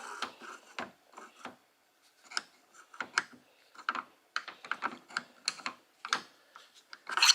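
Phillips screwdriver clicking and tapping irregularly against the screw that holds a car's rear door handle, worked through an access hole inside the door.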